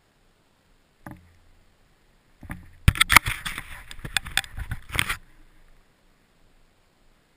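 A burst of muffled knocks and rattling, about three seconds long with several sharp jolts, as a snowmobile rides over bumpy powder snow. The engine itself is barely heard.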